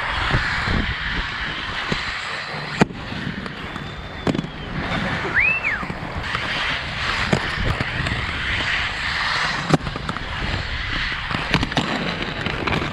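Aggressive inline skates rolling fast over a concrete skatepark, a steady rushing of the wheels, broken by several sharp cracks as the skates land and strike the concrete, one just under three seconds in after an air.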